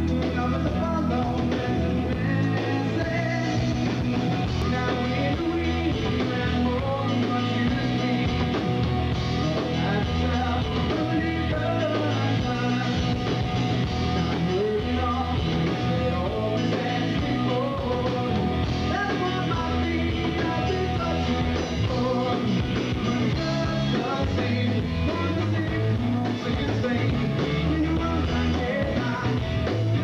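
Live rock band playing: electric guitars and drums, with a male singer's vocal over them. The band plays without a break, at a steady loud level.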